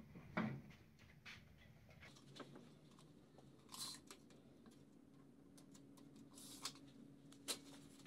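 Quiet workshop handling sounds: a wooden nightstand is thumped down on its side onto a blanket-padded bench about half a second in. A few faint scrapes and sharp clicks follow as a steel tape measure is pulled out and handled on the panel, with the sharpest click near the end.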